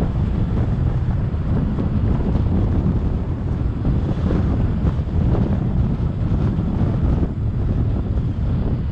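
Wind buffeting the microphone of a camera on a moving vehicle, a steady low rumble mixed with road noise.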